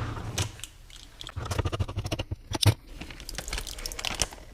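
A can of cream corn being opened and handled: a run of small, irregular metal clicks and scrapes.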